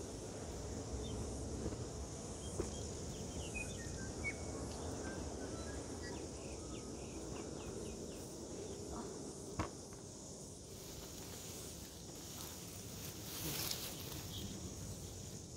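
Steady high-pitched insect chirring from the grass, with the rustle of plum-tree leaves and branches being handled during picking, swelling briefly near the end, and one sharp click about ten seconds in.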